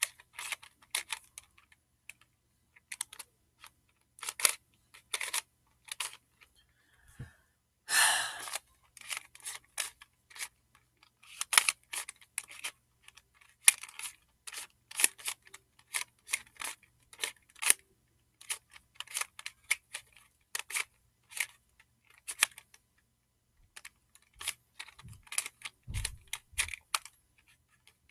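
Plastic barrel cube, a 3x3 twisty puzzle, being turned by hand: quick irregular clicks of its layers twisting, with a longer rattle about eight seconds in.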